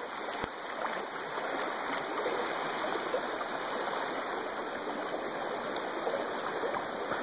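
A creek running: a steady, even rush of flowing water.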